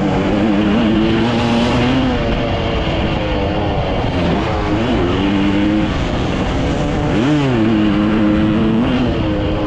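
Dirt bike engine running hard under the rider, heard close from a helmet camera with wind rush. The revs drop and climb back twice, about four and a half and seven seconds in, as the throttle is rolled off and on.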